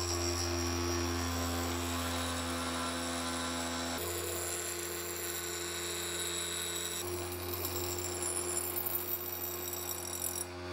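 Electric grinder motor running with a steady hum while the steel of an old file knife blade is ground against its wheel, throwing sparks. The grinding noise wavers in loudness near the end.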